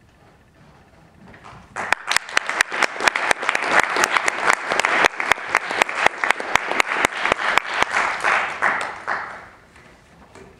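Audience applauding as the performers walk onto the stage. It starts about a second and a half in, with a few sharp single claps standing out close by, and dies away near the end.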